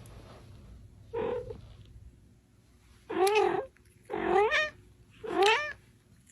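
Domestic cat meowing: a short, softer call about a second in, then three loud, drawn-out meows about a second apart, each rising and then falling in pitch.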